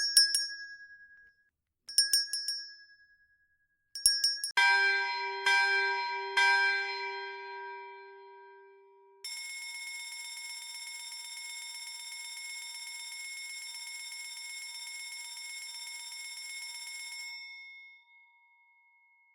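Bell-like chimes: three short dings about two seconds apart, then three louder strikes that ring on and die away, followed by a steady held chord of several tones that fades out near the end.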